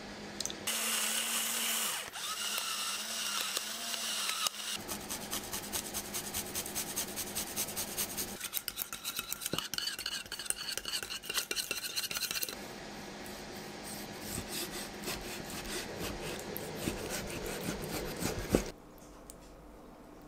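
Vinegar poured into a stainless steel bowl, then a small wire whisk beating the oil-and-vinegar dressing against the bowl's sides: a fast, dense run of metal clicks and scrapes that stops suddenly near the end.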